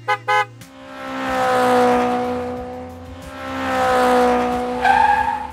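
Engine-like sound effect for the ride-on toy car: a steady hum that swells twice as the car crosses the yard, with a short run of quick clicks at the start.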